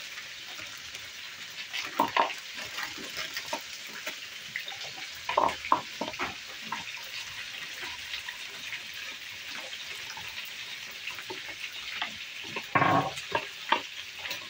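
Chicken shallow-frying in hot oil with a steady sizzle, while a metal spoon clinks and scrapes in a plastic bowl, mixing corn flour with water. There are a few louder knocks about two, five and thirteen seconds in.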